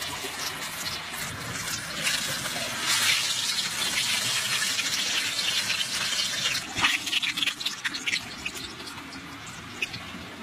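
Battered chicken deep-frying in hot oil: a steady sizzle full of crackles and small pops. It swells about two seconds in and has a few sharper pops around seven seconds.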